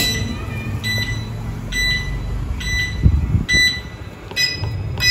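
Gas pizza oven's electronic controller beeping: short high beeps about once a second, over a low steady rumble, while the oven's top burner fails to light.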